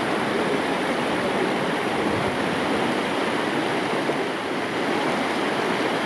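Fast, shallow river rushing over rocks: a steady, even sound of flowing water.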